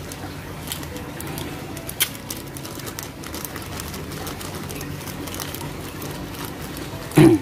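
Thin plastic zip bag crinkling and crackling as a small fishing lure is worked out of it by hand, with one brief louder low sound near the end.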